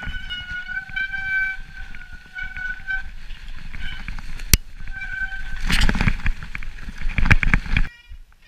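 Mountain bike disc brakes squealing in a steady high tone while braking down a steep snowy descent, breaking off briefly and returning. There is a sharp click midway, and bursts of loud rough noise follow in the last few seconds.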